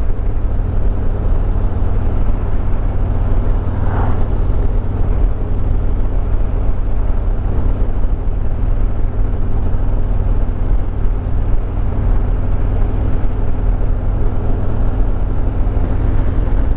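Harley-Davidson Road Glide Limited's V-twin engine running at a steady cruise on the move, with wind and road noise over it.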